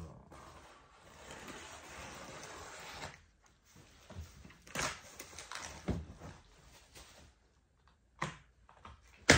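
Plastic stretch film on a pallet being cut with scissors and pulled away: a steady rustling hiss for about three seconds. Then a few separate knocks and rustles of packaging being handled, with a sharp knock just before the end, the loudest sound.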